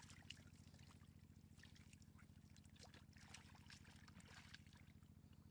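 Faint splashing and trickling water with scattered small clicks, over a steady low hum that pulses rapidly and evenly.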